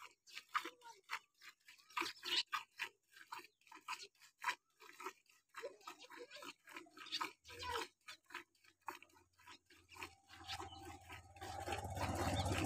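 Hand milking of a Kankrej cow: quick, irregular squirts of milk hitting a steel bucket. A steady low hum comes in about ten seconds in and grows louder near the end.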